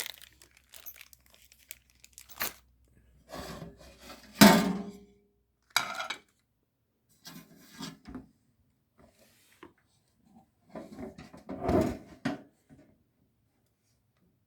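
Packaging and appliance parts being handled during an unboxing: a series of rustling, scraping and knocking noises. The loudest scrape comes about four and a half seconds in, and another cluster follows near the twelfth second.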